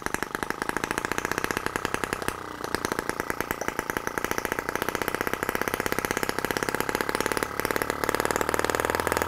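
M12 miniature single-cylinder four-stroke gasoline engine running fast with rapid, evenly spaced exhaust pops, faltering briefly about two and a half seconds in, as its carburetor mixture needle is adjusted to get it running as well as it will.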